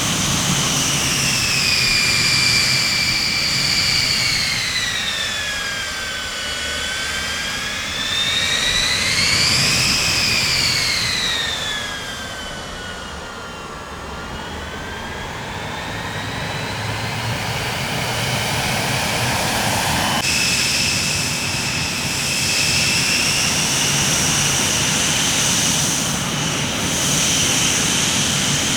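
Jet aircraft engines whining over a rumble, the turbine pitch falling, rising and falling again. About twenty seconds in the sound changes abruptly to a steadier, higher whine.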